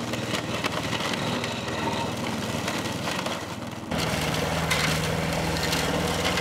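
Petrol rotary lawn mower running over piles of cut branches, its blade shredding twigs and leaves into mulch with many small snaps over the engine's drone. The engine is louder from about four seconds in.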